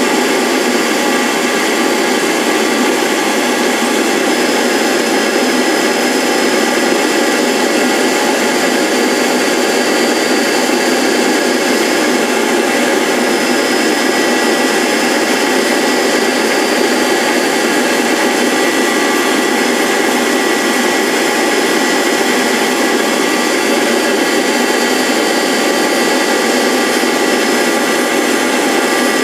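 Motor-driven cutter on a rose engine lathe running steadily through an ornamental cut in wood: a constant mechanical rush with a steady high whine.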